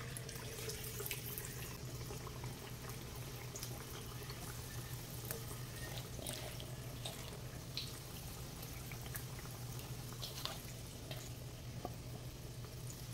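Gram-flour-battered potato fries sizzling in hot oil on high heat as they are dropped into the pan, with scattered crackles over a low steady hum.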